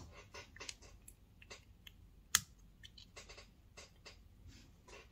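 Small clear plastic craft pieces handled by hand on a tabletop: faint scattered clicks and rustles, with one sharper click about two seconds in.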